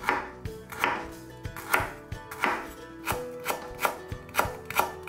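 Chef's knife slicing a lemongrass stalk into thin rounds on a wooden cutting board: a run of crisp chops, about two a second.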